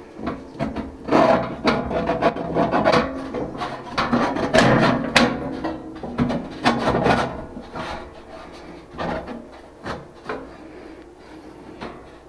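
Scraping, rubbing and knocking of hands and tools on parts of a central air unit as it is being worked on. The scrapes and knocks come thick and fast for the first several seconds, then thin out to scattered knocks.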